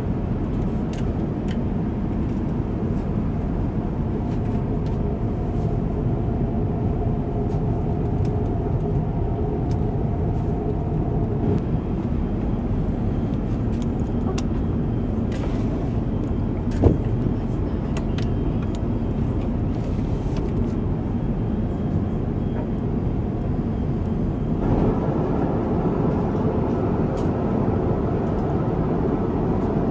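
Steady low rumble of a vehicle's cabin noise, with a single sharp click about 17 seconds in; the noise becomes brighter near the end.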